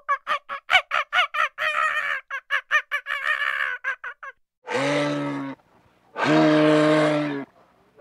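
Langur giving a rapid series of short, high yelping calls, about five a second, for the first four seconds. Then a moose gives long, harsh, low calls, each about a second long: two of them, with a third starting at the very end.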